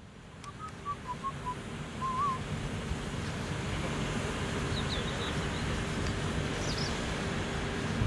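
Manitou MRT2145 rotating telehandler's engine running under load as its boom raises, mixed with wind rumble on the microphone, and the whole grows louder about two seconds in. A bird whistles a few short wavering notes in the first couple of seconds, with fainter high chirps later.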